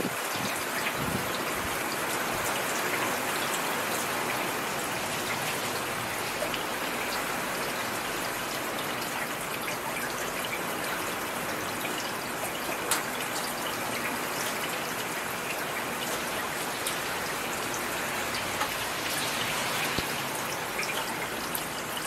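Steady rain falling, an even hiss with scattered sharper drop ticks.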